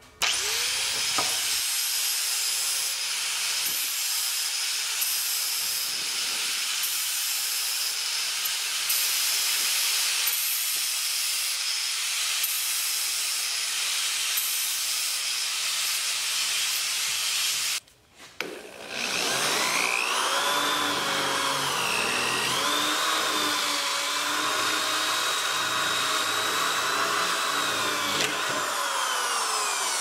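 Power tools cutting PVC pipe: for about eighteen seconds a steady, high-pitched cutting and grinding noise. After a brief break, a corded electric drill bores into PVC pipe, its motor whine wavering under load and falling away near the end.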